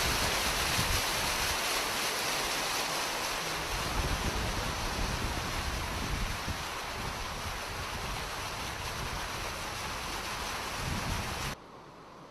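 Rushing floodwater: a steady, dense rush of water noise that cuts off suddenly near the end.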